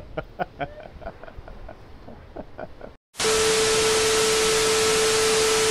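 A man laughing in short bursts. Then, about three seconds in, a sudden cut to loud TV static: an even hiss with a steady tone running through it, which stops abruptly near the end.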